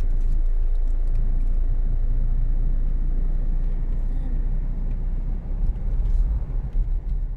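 Toyota Fortuner driving on a paved road, heard from inside the cabin: a steady low rumble of engine and tyre noise.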